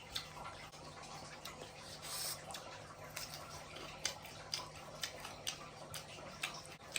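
Close crunching of deep-fried whole shrimp eaten with shells and legs on: a steady run of short crisp crunches, about two or three a second, with one longer crackling crunch about two seconds in.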